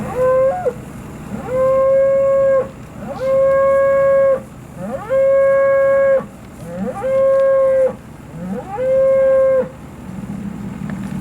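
A calf bawling over and over: six long, level calls at a fairly high pitch, each starting with a quick upward slide, the first one short.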